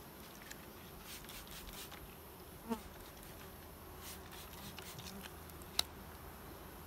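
Carniolan honey bees buzzing around a frame lifted out of an open hive, with one bee flying close past in a short, louder buzz a little before halfway. A single sharp click comes near the end.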